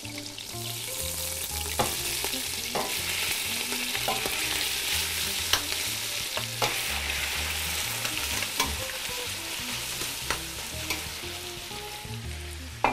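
Cubes of pork sizzling as they are dropped with tongs into hot oil and butter in a stainless steel stew pot, being seared. The sizzle swells about a second in as the meat goes in, and the metal tongs click against the pot every second or two.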